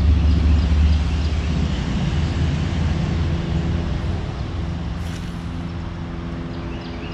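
Road traffic: a heavy vehicle's engine rumble, loudest at the start and slowly fading away as it passes.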